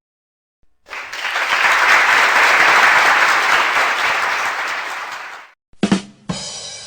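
Crowd applause that swells and then fades out over about five seconds. It is followed near the end by a couple of brief knocks and the start of a short ringing effect.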